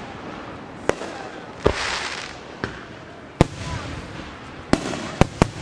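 Aerial fireworks show: about seven sharp shell bangs at uneven spacing, several close together near the end, with a crackling hiss after the one about two seconds in. The shells come from what the uploader takes for 5-inch mortars.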